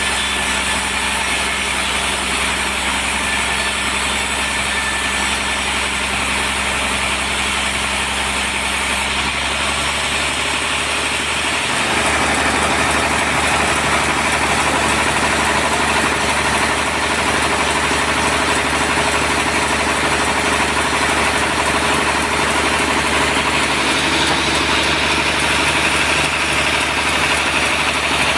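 Sawmill running as it saws a trembesi (rain tree) log into planks: a steady machine drone with a constant hum. About twelve seconds in it becomes louder and brighter and stays that way.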